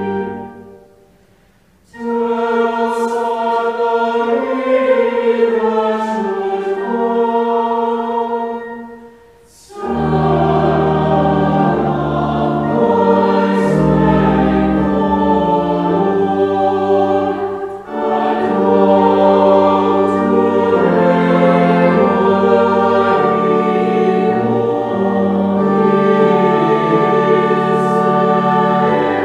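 Church choir singing in parts, in long sustained chords with short breaks between phrases. From about ten seconds in, deep sustained organ bass notes join under the voices.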